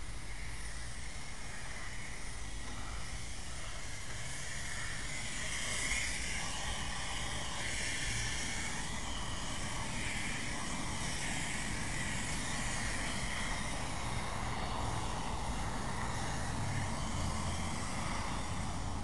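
Steam cleaner jetting steam onto a car's dashboard, a steady hiss that swells and dips as the jet moves, over a low rumble.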